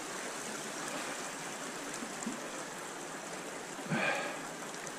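Small trout stream's water running steadily, an even rushing hiss, with a brief louder sound about four seconds in.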